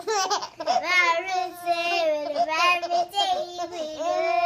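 A high-pitched voice vocalising without words in a long, wavering sung tone.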